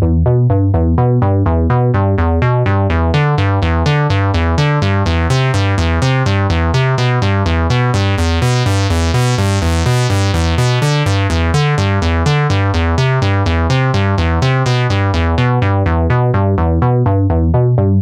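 Synthesizer preset playing a fast, steady run of repeated notes, about four or five a second, heavy in the bass. Its tone brightens towards the middle and mellows again near the end, like a filter sweeping open and closed.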